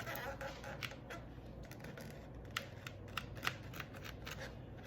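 Metal tweezers clicking as hairs are plucked from a wig's lace frontal: small sharp clicks at irregular intervals over a faint steady background hum.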